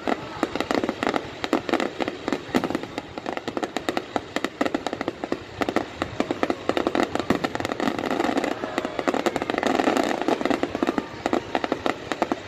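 Aerial fireworks display going off, a rapid run of sharp pops and bangs several a second over continuous crackling. It grows densest from about eight to eleven seconds in.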